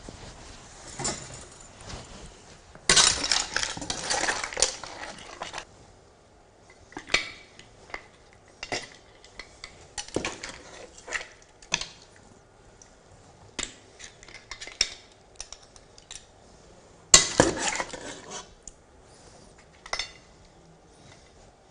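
A metal pasta server clinking and scraping against an enamelled pot and a serving plate as pasta with clams is lifted out and plated. There are scattered clinks, with two longer spells of clatter, one about three seconds in and the louder one near the end.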